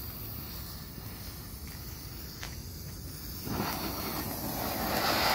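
World Class Fire Ball mini fountain firework spraying sparks. Its hiss is faint at first, then swells steadily louder from about three and a half seconds in as the fountain takes hold.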